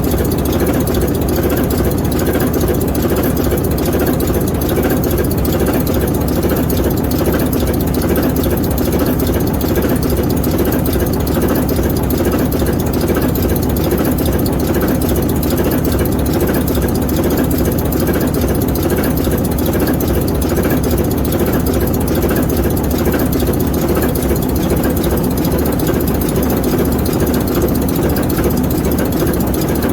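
ALCO 539T six-cylinder turbocharged diesel prime mover of an S4 locomotive, running steadily with an even, unchanging beat.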